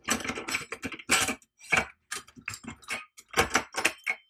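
Metal clicking and clattering as the chrome overflow faceplate of a bathtub trip-waste assembly is lifted off and its brass trip-lever linkage rod is drawn up out of the brass overflow tube, rattling against it. The clicks come in irregular clusters with short pauses.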